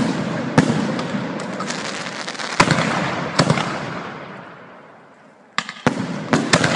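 Fireworks going off at close range: a series of sharp bangs, each followed by a long fading rumble, with a quick run of bangs near the end.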